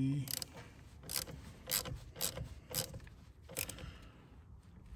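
Hand ratchet wrench clicking in short strokes, a sharp click about every half second, as it tightens the nut on a car battery's terminal clamp.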